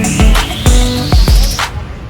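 Background music with a beat of heavy kick drums and a rising sweep that cuts off near the end, dropping into quieter music.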